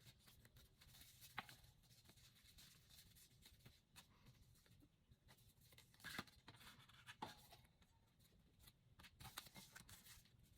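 Near silence, with faint rustling and a few light ticks and taps as paper and card are handled.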